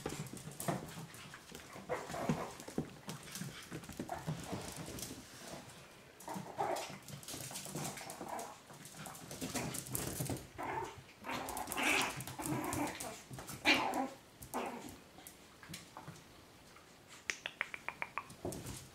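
Chihuahua puppies vocalising in short, irregular sounds as they play with each other. Near the end comes a quick run of sharp ticks, claws clicking on the tile floor.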